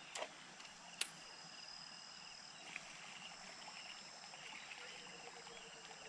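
Faint chorus of frogs calling from the river, steady high-pitched trills and pulsed chirps. A sharp click about a second in is the loudest sound.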